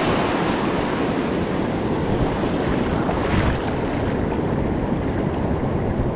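Surf washing onto a beach with wind buffeting the microphone, a steady rushing noise with a brief surge about three seconds in.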